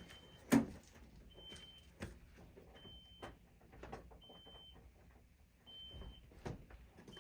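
A short high electronic beep repeating about every second and a half, with scattered knocks and clunks of handled metal parts, the loudest about half a second in.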